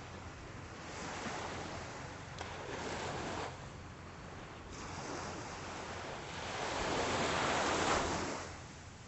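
Small, calm Atlantic surf washing onto the beach, an even rushing that swells twice, most loudly near the end, as waves break and then falls away.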